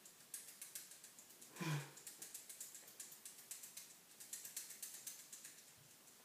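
Soft, rapid mouth clicks, several a second, from a child sucking and chewing on a pacifier. A brief low vocal sound comes about two seconds in.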